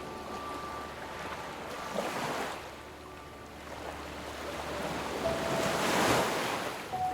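Ocean waves breaking and washing in, swelling twice: a smaller wave about two seconds in and a larger, louder one about six seconds in.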